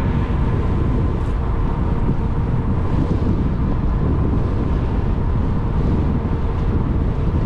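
Wind buffeting the microphone of a moving e-bike: a steady, loud rush with heavy low rumble and a faint steady hum underneath.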